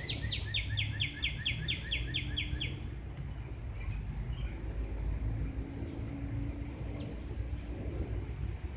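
A bird calling a rapid run of repeated, falling chirps, about four or five a second, that stops a few seconds in, with a few faint high chirps later. Under it runs a steady low rumble.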